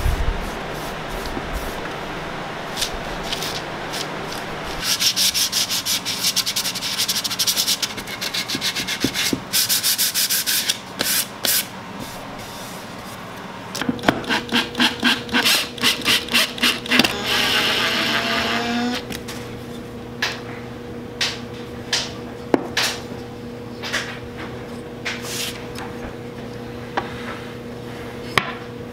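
A pad rubbed back and forth by hand over the wooden box in repeated strokes. Later, a cordless drill/driver runs in short pulses, about three a second, then a longer run that rises in pitch as it drives small brass hinge screws. Light taps and clicks of handling the box follow.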